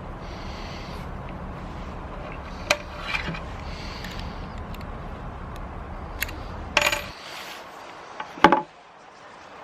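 Hard plastic camera housing being handled: a few sharp clicks and knocks, the loudest near the end. A low background rumble runs under them and cuts off suddenly about seven seconds in.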